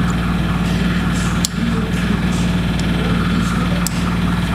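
Yamaha R1Z250's two-stroke parallel-twin engine idling steadily on its freshly rebuilt top end, with a couple of light clicks about one and a half and four seconds in.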